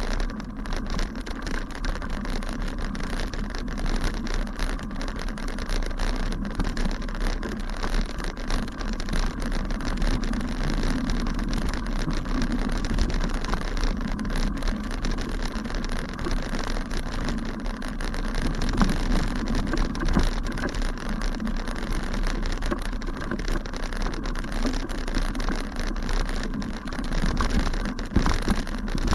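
Bicycle rolling over a bumpy grass path: a steady rumble of tyres with a dense, irregular rattle of the bike and camera mount.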